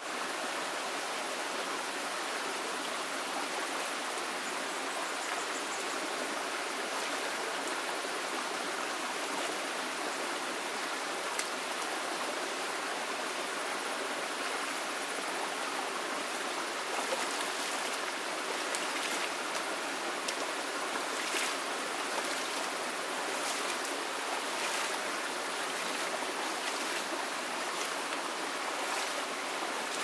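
Shallow stream running steadily, with splashes of water from someone bathing and scooping water in it. The splashes come more often in the second half.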